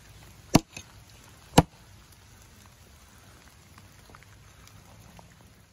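Two sharp chops of a Hults Bruk 24-inch bushcraft axe biting into a wet log, about a second apart, the first with a small follow-up knock. Faint scattered ticks of rain follow.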